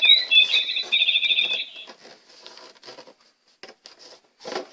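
A bird singing: a few whistled notes that slur downward, then a rapid trill that stops about two seconds in. Faint scattered taps follow.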